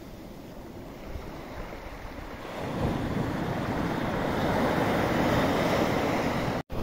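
Small sea waves washing onto a sandy beach: a quieter hiss of backwash draining over the sand, then a wave breaks and surges up the shore, louder from about three seconds in. The sound cuts out for an instant near the end.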